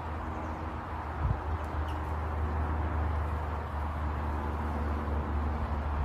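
Steady low outdoor rumble with a couple of faint, short high chirps about two seconds in, from small birds at seed feeders.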